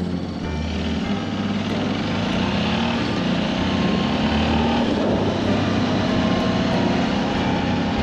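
Motorbike riding along a dirt and gravel road: steady engine and road noise.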